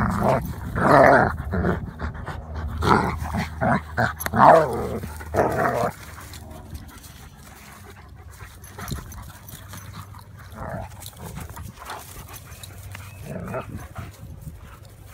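A German Shepherd and a yellow Labrador retriever play-fighting, growling and snarling loudly in a rapid string of short growls for about the first six seconds. The growling then drops away to occasional quieter growls as the dogs break apart and circle.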